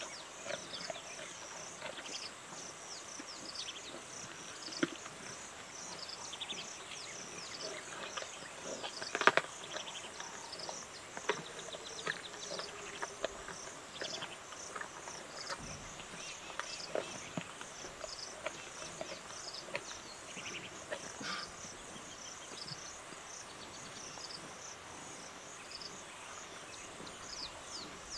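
A lioness chewing and tearing at a warthog carcass: scattered wet clicks and bone crunches, the loudest about nine seconds in, over the steady, evenly repeating high chirping of insects.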